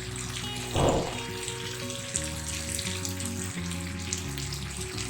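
Spice paste for a fish curry sizzling and crackling in oil in a pan as it is fried down, with a short thump about a second in, over background music.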